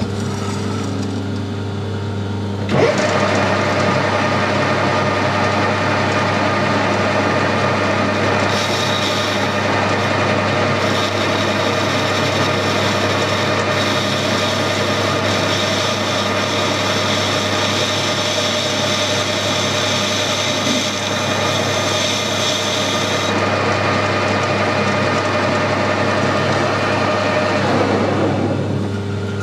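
Metal lathe starting about three seconds in and running, with a boring bar cutting inside the bore of a mild steel bush, which adds a higher-pitched cutting sound for most of the middle stretch. Near the end the lathe is switched off and runs down.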